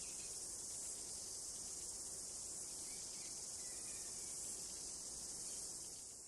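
Dense, steady high-pitched chorus of insects, with a few faint short bird chirps. It begins to fade out near the end.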